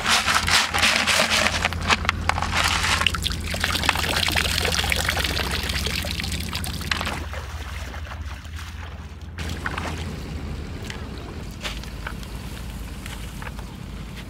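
Shallow river water splashing and trickling as a person wades with a plastic bucket, loudest over the first few seconds and fading after that.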